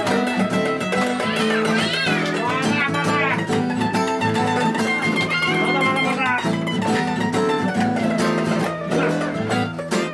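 Live band music from electric and acoustic guitars. A lead line bends and wavers in pitch about two to three seconds in.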